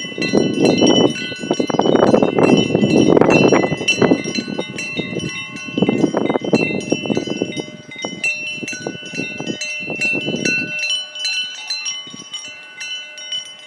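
Many cowbells on grazing cows ringing together, an overlapping peal of struck metal tones like church bells chiming. A low rushing noise sits under the bells and stops about three-quarters of the way through, leaving the bells alone.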